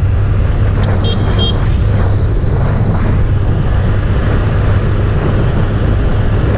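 Motorcycle running steadily on the move, a low engine drone with road noise. A short, high double beep sounds about a second in.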